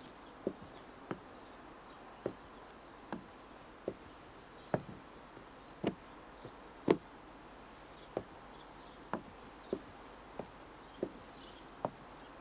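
Footsteps on a hard floor: about fourteen separate, sharp steps, roughly one a second, over a faint steady hiss.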